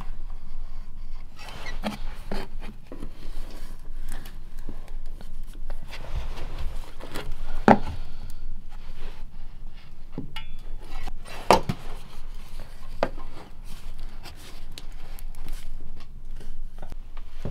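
Caulking-gun work and handling noise: a caulking gun being squeezed and handled, with rubbing and scattered clicks. There are a few sharp knocks of the gun and PVC pipe pieces against the plywood floor and framing, the loudest about a third and two thirds of the way through.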